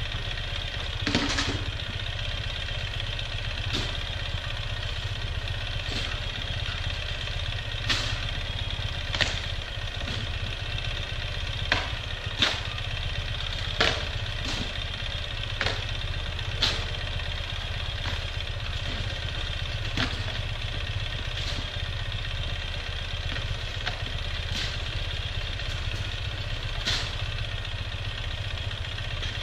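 Ural sidecar motorcycle's flat-twin engine idling steadily, with a metal snow shovel scraping and chopping at snow on the paved driveway every second or few.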